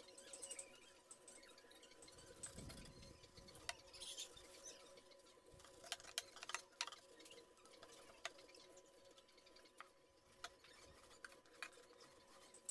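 Near silence: a faint steady hum with scattered light clicks and ticks.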